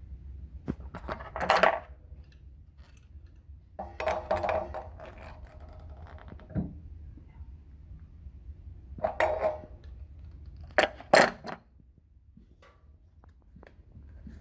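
Metal clinks and scrapes from handling plumbing fittings and tools, in a handful of short bursts with a brief metallic ring, two sharp clinks close together near the end.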